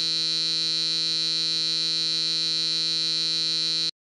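A steady electronic buzz on one unchanging pitch, sounding like an alarm buzzer, cut off abruptly near the end.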